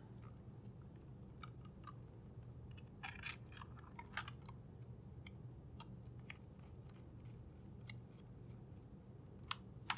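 M2 screws being driven with a small precision screwdriver through a keyboard's bottom plate into its 3D-printed plastic shell: faint scattered clicks and a few short scrapes, with two sharper clicks near the end.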